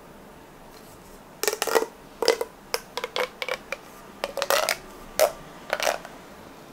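Ribbed plastic pop tube fidget toy being pulled and bent by hand, giving an irregular run of sharp pops and clicks that starts about a second and a half in and stops about six seconds in.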